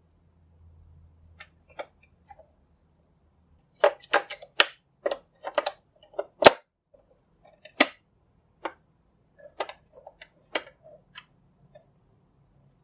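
Irregular sharp plastic clicks and taps as AA batteries are fitted into the battery compartment of a plastic coin-bank toy and the compartment cover is put back on, starting a few seconds in.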